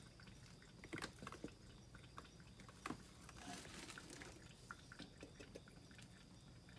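Near silence: room tone with a few faint sharp clicks and a short soft rustle a little past halfway.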